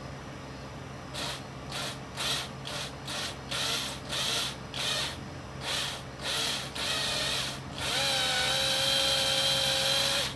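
Small power drill with a 7/64 bit, drilling out the plastic heat rivets on a drone camera's fan bracket. It runs in a dozen or so short bursts, then spins steadily for about two seconds with a whine and stops abruptly.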